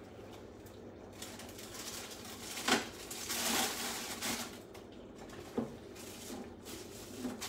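Kitchenware clattering off to the side: a few sharp knocks, the loudest about three seconds in, another near six seconds and one just before the end, over a soft hiss that swells for a second or two around the middle.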